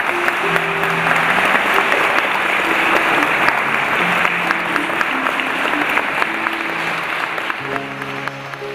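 Congregation applauding steadily, with the clapping fading away near the end. Soft plucked-string music plays underneath and becomes clearer as the applause dies down.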